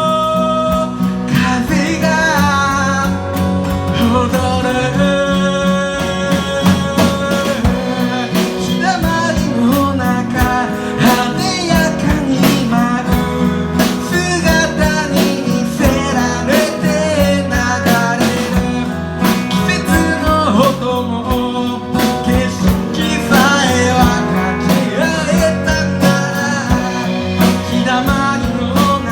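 Acoustic band music led by guitar, played continuously.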